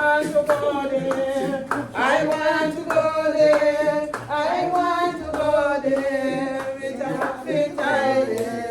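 Several voices singing a song together, with hand clapping keeping time.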